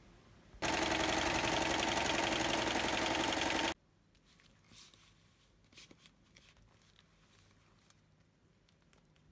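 Electric sewing machine running fast for about three seconds with a rapid, even stitching rhythm, sewing a clear plastic sheet, starting and stopping abruptly. Afterwards, faint crinkles and clicks of the plastic being handled.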